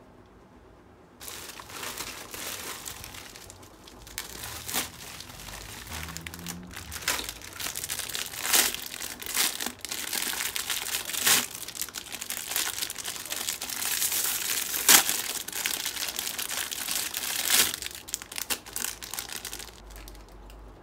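Thin clear plastic packaging bags crinkling and rustling as they are handled and opened, with many sharp crackles. It starts about a second in and dies away near the end.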